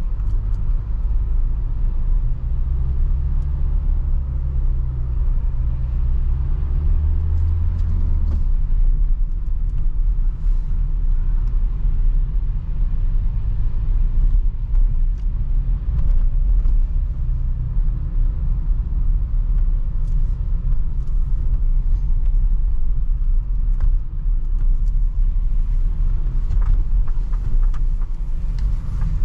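Renault Trafic van driving, heard from inside the cab: a steady low rumble of engine and road noise. The engine note stands out for the first eight seconds or so, then drops back under the rumble of the tyres.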